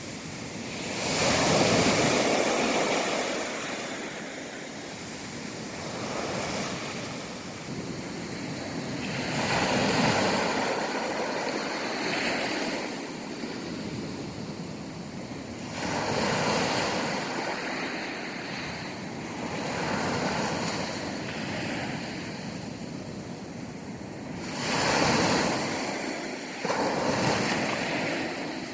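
East Sea surf: waves breaking and washing on the shore, each surge swelling and falling away every few seconds.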